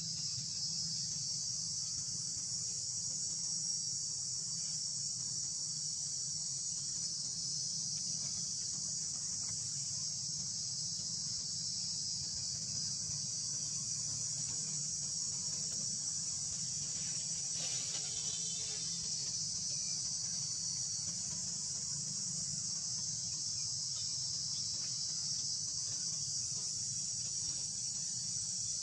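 Steady chorus of insects, a dense unbroken high-pitched drone, with a low steady hum beneath it.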